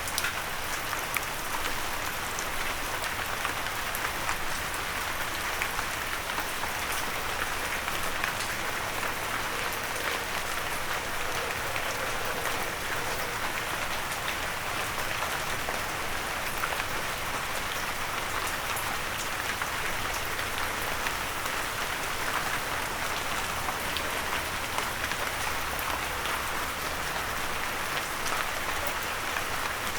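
Steady rain falling, with many individual raindrops pattering on a surface.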